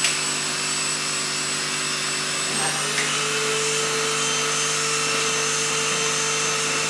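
Ultenic P30 Combo pet-grooming vacuum running steadily while its hose attachment is worked through a dog's coat. Its motor pitch steps up slightly about two and a half seconds in.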